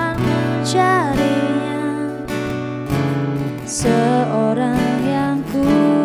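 Background music: a ballad led by strummed acoustic guitar, with a gliding melody line above it.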